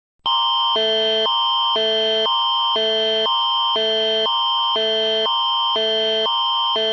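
Canadian Alert Attention Signal, the Alert Ready emergency alert tone. A higher electronic chord and a lower one swap back and forth every half second over one steady high tone, starting just after the beginning. It is the attention signal that announces an emergency alert.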